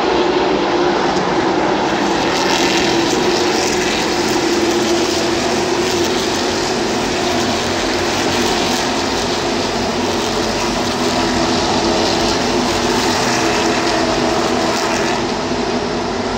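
A field of NASCAR Xfinity Series stock cars running at racing speed, their V8 engines making a loud, steady drone whose pitch shifts slowly as the pack circulates.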